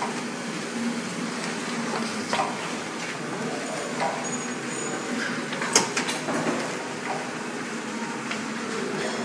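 Semi-automatic hot stamping machine running steadily with a low hum, with scattered clicks and knocks; a sharp click a little before six seconds in is the loudest.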